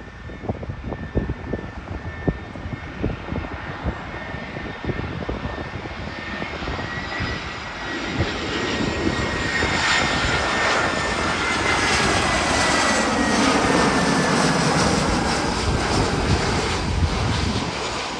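Jet engines of an Airbus A320-family twin-jet airliner on landing approach, growing louder from about halfway through as it passes close by, with a high engine whine that slowly falls in pitch. Wind knocks on the microphone in the first half.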